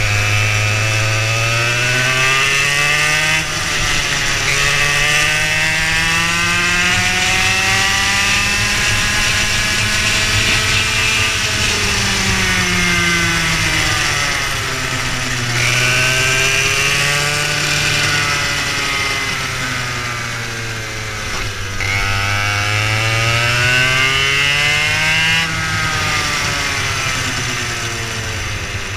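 Racing go-kart engine heard from on board, its pitch climbing steadily for several seconds and then falling away as the kart speeds up and slows for corners, with a few sudden changes in pitch.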